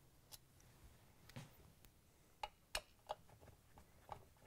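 Faint, scattered clicks of a Phillips screwdriver working the screws out of a stand mixer's metal cover. There are about six sharp ticks at uneven intervals.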